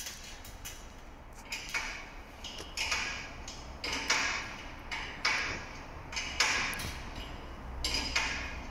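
Irregular clicks and short scrapes of a spark plug and engine parts being handled close to the microphone, over a faint steady low hum.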